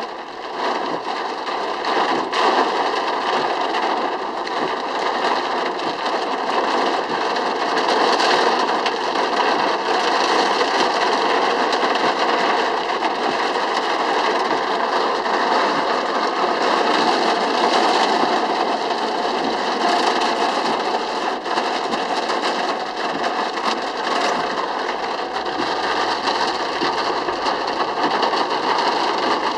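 Steady heavy rain pelting a car's roof and windshield, heard from inside the car.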